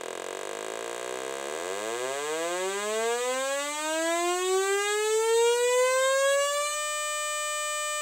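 A single hand clap repeated faster and faster, from about 30 up to 600 claps a second. The separate claps blur into a buzz that rises steadily in pitch like a siren, then holds as one steady buzzing tone for about the last second.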